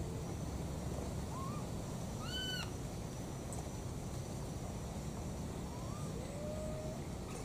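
Baby macaques giving short, clear coo calls for their mother. A faint rising call comes about a second in and a louder one at around two seconds, then two more near the end, over a steady low rumble.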